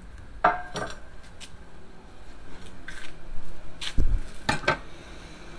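Cast iron cookware being handled: a few sharp metal clanks and knocks as the lid comes off and the pan is lifted from the grill grate, with a heavy low thump about four seconds in followed by two more clanks.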